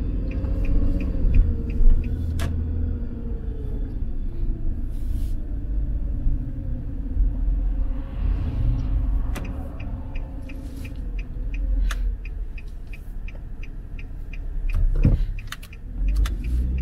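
Road and engine noise heard from inside a moving car: a steady low rumble with the engine's hum shifting a little with speed, and a faint regular ticking. About eight seconds in, an oncoming vehicle swishes past.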